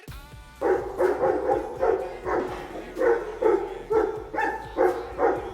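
Dog barking over and over, about two barks a second, starting just under a second in.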